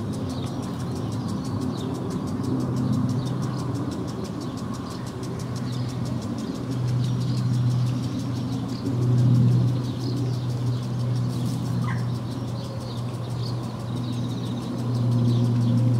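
Pond-side park ambience: a steady low engine drone from distant traffic or aircraft, swelling about halfway and again near the end. Over it, swallows and house martins twitter in short scattered chirps, and a garden sprinkler ticks fast and evenly.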